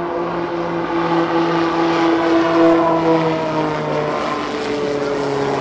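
A Beechcraft Starship's twin pusher turboprops running as it flies past: a steady propeller hum that grows louder toward the middle and then drops in pitch as the aircraft goes by.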